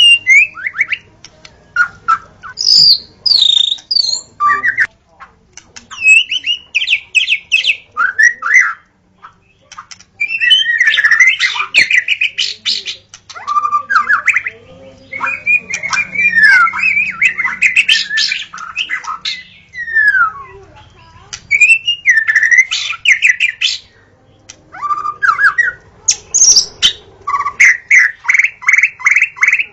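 White-rumped shama (murai batu) singing: a varied run of loud whistled phrases, some rising and some falling in pitch, separated by short pauses, and ending in a fast series of repeated notes.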